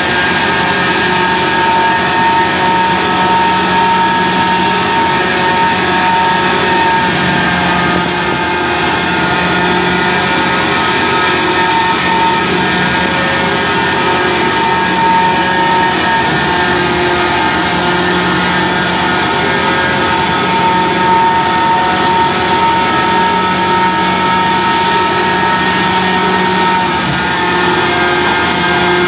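Tractor-powered stationary threshing machine running steadily while stalks are fed into it. The tractor engine and the thresher's drum make a loud, even mechanical drone with a steady whine over it.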